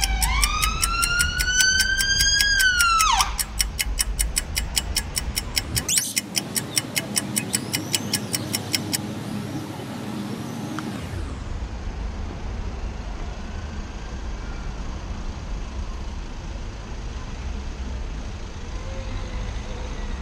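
A siren rises in pitch, holds, then drops away about three seconds in, over a fast, even ticking that stops about nine seconds in. After that only a steady low rumble of traffic remains.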